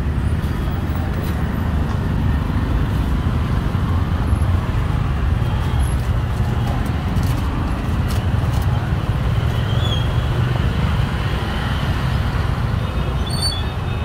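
Steady low rumble of road traffic, with a few faint light clicks over it.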